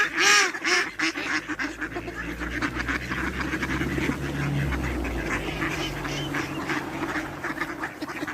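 A flock of ducks quacking: a few loud calls in the first second, then many overlapping quacks chattering steadily.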